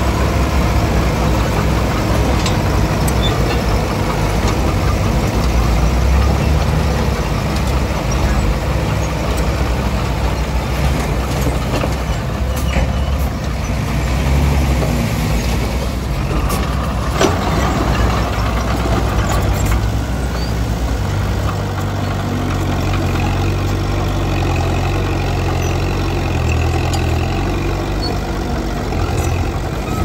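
Diesel engine of a Komatsu D20P bulldozer running steadily, its note shifting about two-thirds of the way through. One sharp knock sounds a little past halfway.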